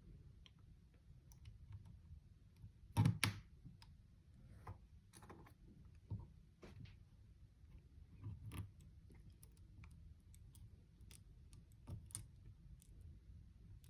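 Faint scattered clicks and small knocks of components and jumper wires being handled and pushed into a solderless breadboard, with one louder knock about three seconds in.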